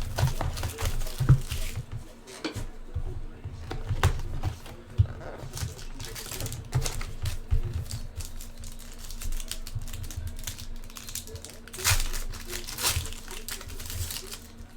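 A sealed trading-card hobby box being opened and its cards handled: crinkling wrapper, scraping cardboard and a run of irregular clicks and rustles, over a steady faint hum.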